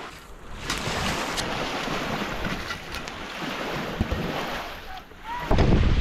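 Small waves washing onto a lake's gravel shore, with wind on the microphone. The wind buffeting turns loud and low near the end.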